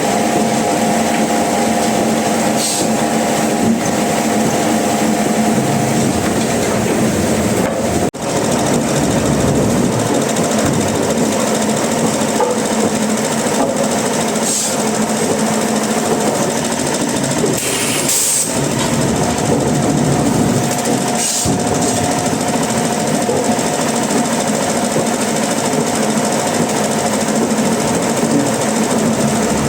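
Engine-driven machine running steadily, a constant drone made of several steady tones over a rough mechanical noise, broken by a sharp momentary dropout about eight seconds in.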